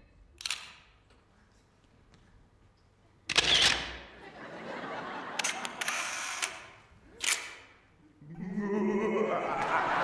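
A stage gone mostly quiet after the music cuts, broken by a few short sharp clicks and noisy bursts. About eight seconds in, audience cheering and applause swell up.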